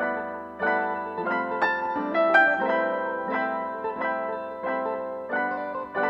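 Background piano music: a gentle tune of notes and chords struck in a steady run.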